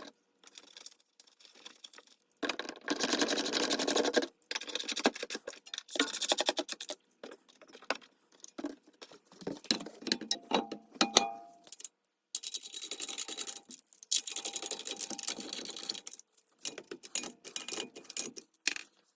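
Socket ratchet wrench clicking in fast runs of a second or two, with pauses and a few metal clinks between, as suspension bolts are run in.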